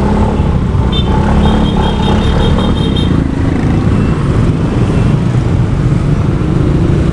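Motorcycle engine running with wind and road rumble on a bike-mounted microphone, riding slowly through motorbike and car traffic. About a second in, a high trilling tone sounds for about two seconds.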